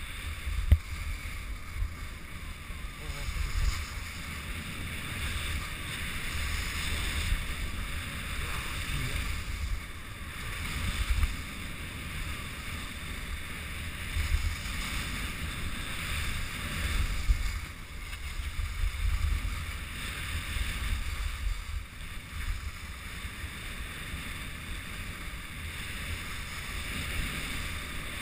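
Wind rumbling and buffeting on an action camera's microphone while riding down a snow slope, over a steady scraping hiss of sliding on snow. A sharp knock comes about a second in.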